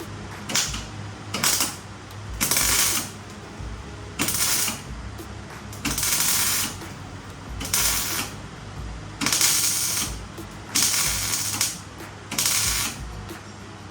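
A ratchet mechanism worked in repeated strokes, about one every one to one and a half seconds, over a steady low hum.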